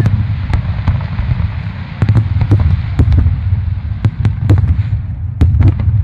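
Aerial fireworks shells bursting in an irregular rapid series of sharp bangs over a steady low rumble of overlapping booms.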